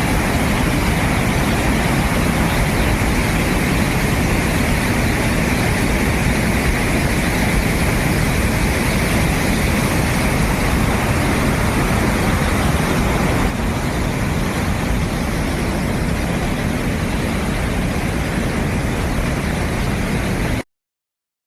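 Waterfall: a steady, loud rush of falling water, dropping a little in level about two-thirds of the way through and cutting off suddenly near the end.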